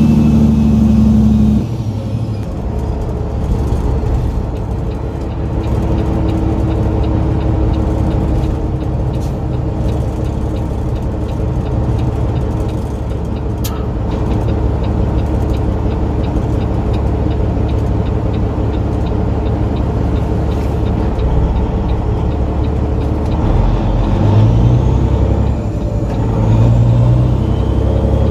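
Diesel engine of a long-nose semi truck pulling a loaded flatbed, running down the road with road rumble, heard from inside the cab. A loud steady drone drops in level about two seconds in. Near the end the engine pulls up again, rising in pitch twice.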